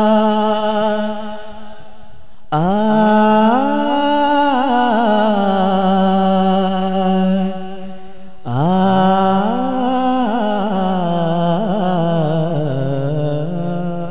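A male qawwali singer sings long, ornamented held vocal phrases without clear words, sliding and bending in pitch. One phrase ends about a second in, and new phrases start about two and a half and eight and a half seconds in.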